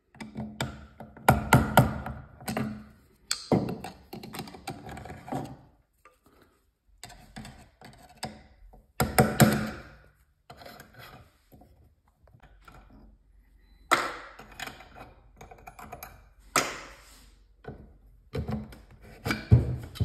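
Metal tools and brass cartridge parts knocking, clinking and scraping as a concealed thermostatic shower valve is taken apart. Irregular clunks and rattles come in clusters, loudest a couple of seconds in and again about halfway through.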